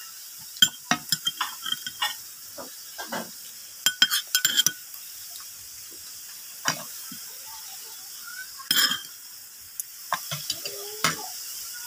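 Metal spoon and fork clinking and scraping against a plate during a meal, in irregular taps and scrapes. A brief wavering pitched sound comes in near the end.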